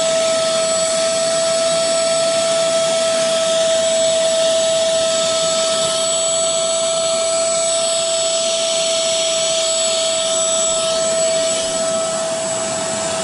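Portable carpet shampooer running steadily: a constant motor whine with one strong steady tone over an airy suction hiss, easing off slightly near the end.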